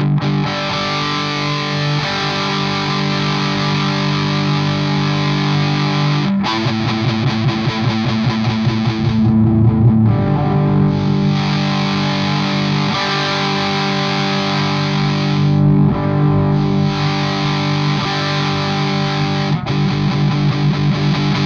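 Electric guitar played through a Fattoria Mendoza effects pedal with a distorted tone, ringing out held chords. A few seconds in, it switches to a stretch of quick, rhythmic strumming before going back to sustained chords.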